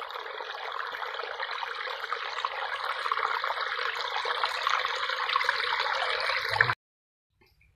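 Shallow water trickling and running among branches and mud, a steady hiss that cuts off abruptly about seven seconds in.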